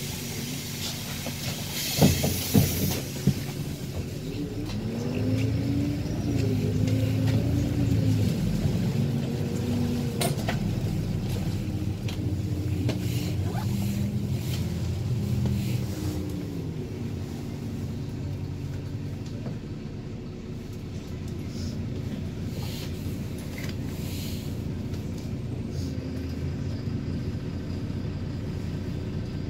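City bus heard from inside the cabin: engine and drivetrain running as it gets under way, with a pitched whine that rises and falls several times for about ten seconds, then a steady low rumble while cruising. A few knocks and a short hiss come about two seconds in.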